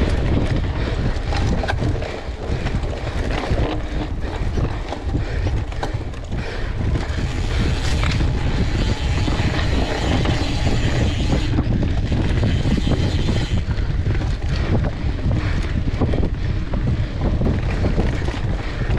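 Mountain bike ridden fast on dirt singletrack: a steady rush of wind on the microphone, with the tyres running on the dirt and a constant patter of small rattles and clicks from the bike over the rough trail.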